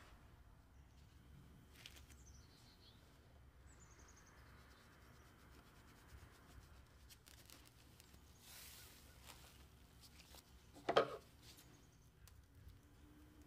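Faint rubbing and handling of floured dough and plastic cling film, with one short, sharp crinkle of the film about eleven seconds in as it is stretched over the dough balls.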